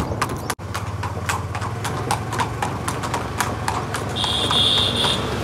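Marwari horse hooves clip-clopping on brick paving at a steady walking pace, several strikes a second. A short high steady tone sounds for under a second near the end.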